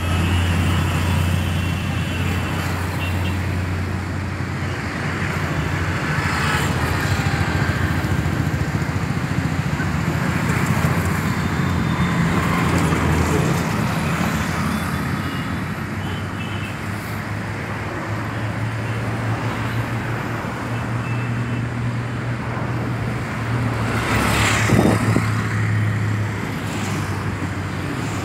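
Road traffic on a city flyover: a steady rush of cars and auto-rickshaws passing, over a constant low engine hum. One vehicle passes louder about 24 seconds in.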